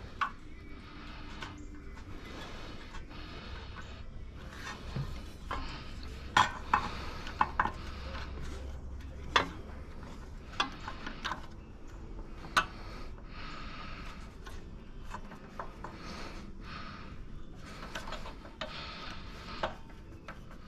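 Hand tools clinking and scraping on metal parts: scattered sharp clinks and knocks, the loudest in the middle of the stretch, with several stretches of scraping and rubbing in between.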